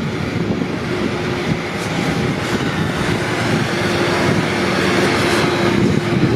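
Double-decker bus running close by: a steady, loud engine and traffic noise with a low hum.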